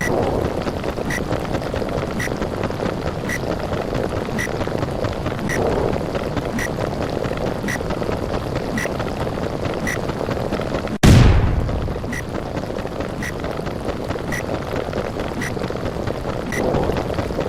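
Layered cartoon sound effects: a steady underwater rumble with short regular ticks about twice a second. About eleven seconds in, a single loud explosion blast breaks in and fades over about a second.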